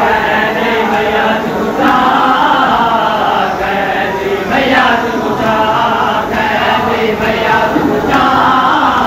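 A group of men's voices chanting together in chorus, a Shia mourning chant (noha) for Imam Hussain.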